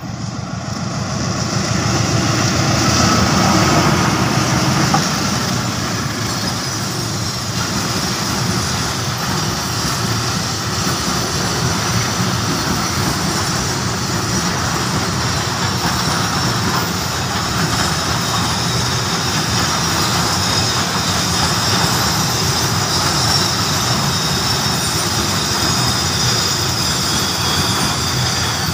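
CC 206 diesel-electric locomotive coming close and passing, loudest a few seconds in. A long, steady run of loaded container wagons follows, their wheels rolling over the rails.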